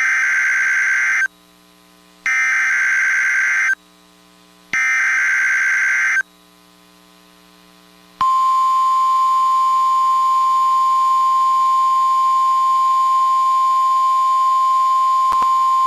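Emergency Alert System SAME header: three harsh data bursts, each about a second and a half long and about a second apart, then, about eight seconds in, the long steady 1050 Hz NOAA Weather Radio warning alarm tone that opens a new warning message.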